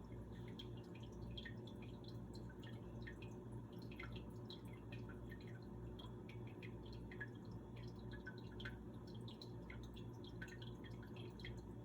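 Quiet room tone: a low steady hum with many faint, irregular soft ticks.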